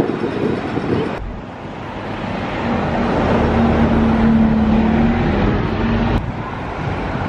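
City street traffic noise that changes abruptly about a second in and again near the end. In the middle, a vehicle engine gives a steady hum for a few seconds.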